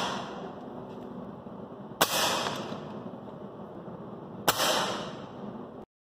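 Two shots from a .177 air rifle fired through a chronograph, about two and a half seconds apart. Each is a sharp crack followed by a short fading ring. The tail of an earlier shot is fading at the start.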